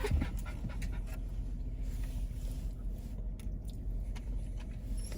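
A dog panting over a steady low hum, with a few small clicks.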